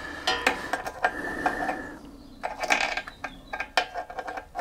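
Irregular metallic clicks and rattles of hands handling and fitting a new Briggs & Stratton overhead-valve spark plug and its lead on a lawnmower engine, with a busier rattle about halfway through.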